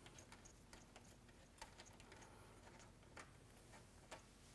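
Near silence with a few faint, irregular light clicks: the small mounting nuts of a car's side mirror being turned off its studs by hand.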